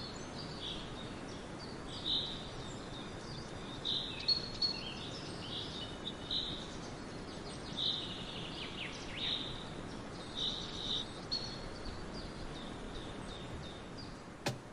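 Songbirds singing in woodland, with short high chirps and trills repeating every second or two over a steady background hiss.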